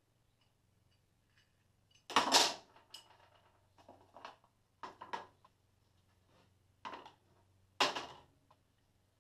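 Metal tools and parts being set down on a steel workbench, about five short clanks and clatters. The loudest comes about two seconds in and another near the end, over a faint steady hum.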